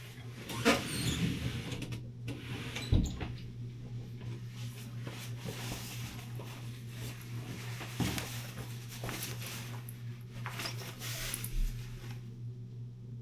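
Scattered knocks and rustles over a steady low hum.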